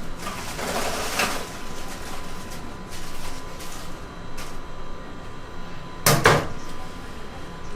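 Food-stall kitchen handling sounds: a short rustle about a second in and a sharp knock like a lid or door shutting about six seconds in, over a faint steady hum.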